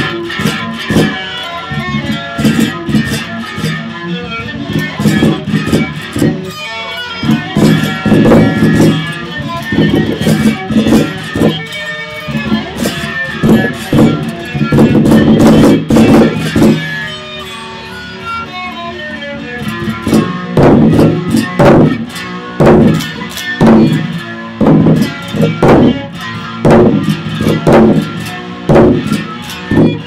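Electric guitar played live, picked and strummed in sharp rhythmic strokes. It swells to a loud sustained passage about halfway through, eases into a quieter lull, then returns with hard strums about twice a second.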